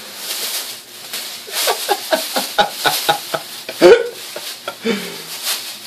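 A plastic bag crinkling and rustling as a cat thrashes around tangled in it in a bathtub, in quick irregular crackles, with a loud thump about four seconds in.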